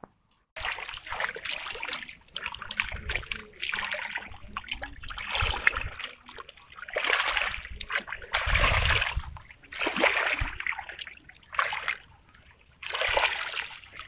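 Shallow muddy water splashing and sloshing in irregular bursts, each about a second long, as a person wades through it and works their hands in it. There are a few heavier thuds about eight or nine seconds in.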